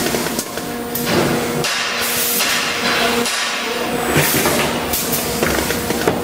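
Automatic carton packing machine running: sharp hissing bursts about once a second, with metallic knocks from its moving parts, over a steady machine hum.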